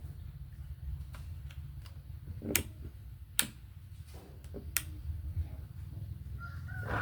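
Sharp, separate clicks and taps of small hard objects being handled, several seconds apart, over a low steady hum. A faint high warbling tone comes in near the end.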